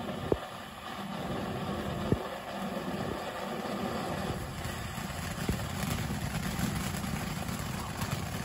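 Phantom Fireworks 'Peach Flower in Spring' ground fountain burning with a steady rushing hiss, broken by a few sharp pops, the loudest about two seconds in.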